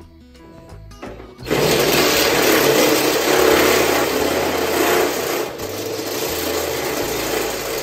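Cordless drill boring into a welded metal bar under steady pressure. The motor starts about a second and a half in, runs loud and even with a brief dip about two-thirds through, and stops at the end.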